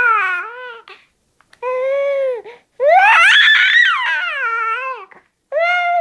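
Young baby crying and fussing in separate wails, each a second or two long with short silences between; the loudest, in the middle, rises in pitch and then falls away.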